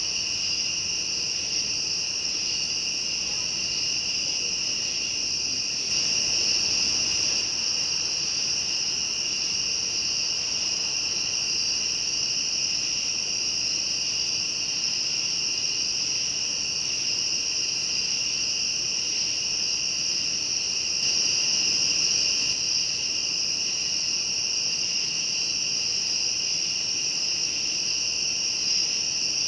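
A chorus of night insects, crickets among them, trilling without a break in two steady high-pitched layers, one above the other. It swells a little about six seconds in and again a little past twenty seconds.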